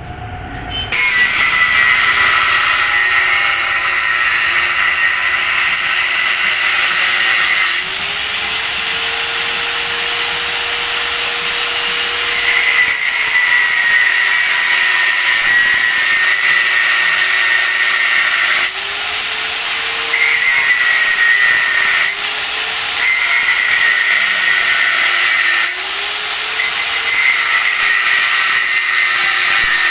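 Electric angle grinder cutting through a motorcycle's steel front exhaust pipe. The motor's whine drops in pitch as the disc bites and rises again when it eases off, and a loud, harsh cutting noise comes and goes in spells of a few seconds.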